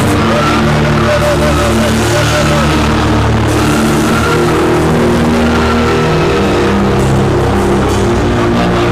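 Live church band music: loud, long held keyboard chords over a steady bass, playing under a prayer session.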